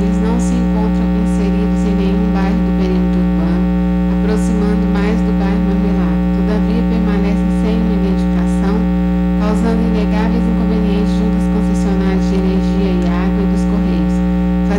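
Loud, steady electrical mains hum in the microphone and sound-system feed: a low, unchanging buzz with many overtones that does not vary.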